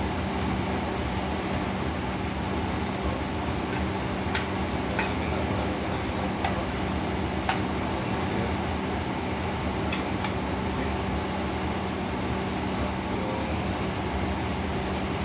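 Steady drone of a commercial kitchen's exhaust hood fan and gas range, with a constant low hum that swells slightly a little more than once a second. A few light clicks of a metal ladle against the skillet.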